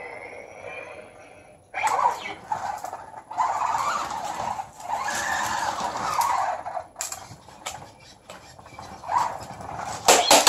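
Spin Master BB-8 toy droid driving about, its drive motor whirring and the ball rolling across the floor in runs of a few seconds with short pauses.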